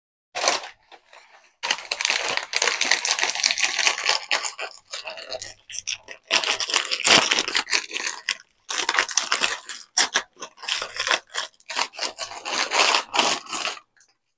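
Crinkly plastic wrapping of roasted seaweed snack packs rustling and tearing as it is handled and opened, in irregular stretches with short pauses.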